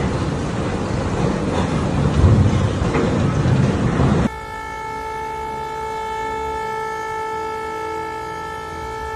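Loud rushing storm noise, heaviest in the low end. About four seconds in, it cuts off abruptly and a steady, sustained horn-like tone takes over and holds unchanged.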